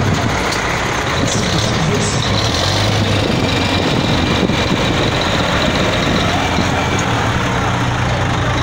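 Heavy truck engine idling steadily, most likely the red race truck beside the camera, with a constant low hum.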